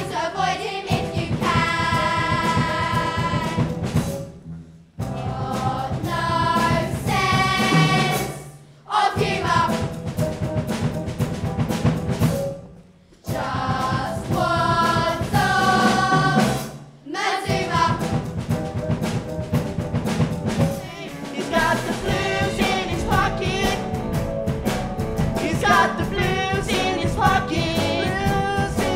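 A chorus of young voices sings a stage-musical number with accompaniment, in long held phrases broken by short pauses.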